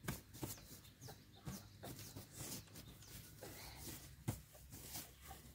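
Faint, irregular clucking of domestic fowl, mixed with light scattered clicks and knocks.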